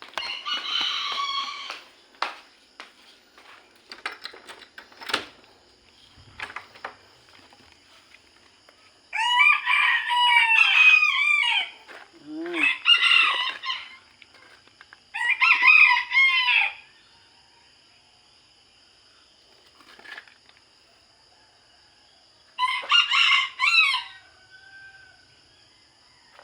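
Roosters crowing, five long crows spread out with pauses between them, each lasting about two seconds. A faint steady high-pitched hum runs underneath.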